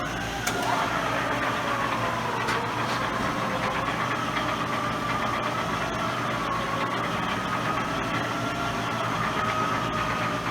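Cincinnati 20-inch metal-planing shaper running under its 5 hp three-phase motor: a steady mechanical hum and noise with a whine that wavers slightly in pitch. There is a short click about half a second in.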